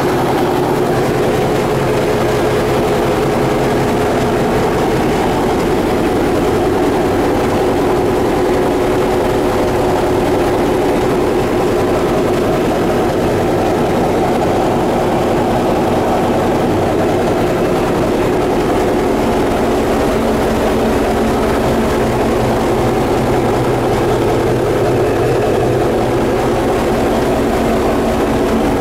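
Caterpillar D8K crawler dozer's diesel engine running steadily at an even speed, heard from the operator's cab.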